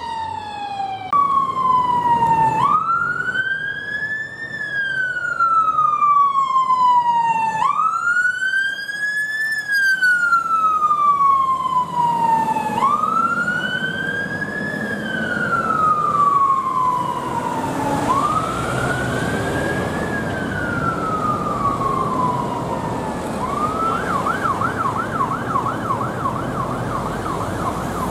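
Volvo FL fire engine's siren sounding a slow wail, each cycle rising quickly and falling slowly about every five seconds. Near the end it switches to a fast yelp, with traffic and the engine running underneath.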